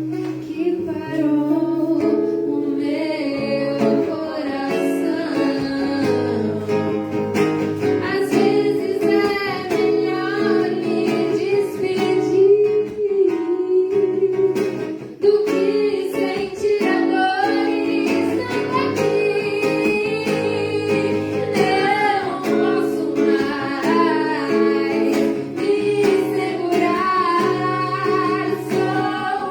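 A voice singing a song to acoustic guitar accompaniment.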